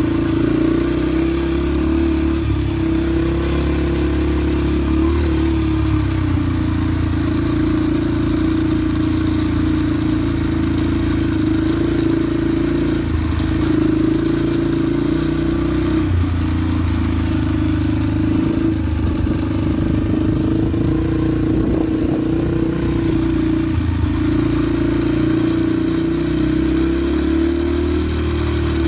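Yamaha PW50's 49cc two-stroke single-cylinder engine running at a low, steady throttle while riding, its note dipping briefly and picking up again a few times as the throttle is eased off and on.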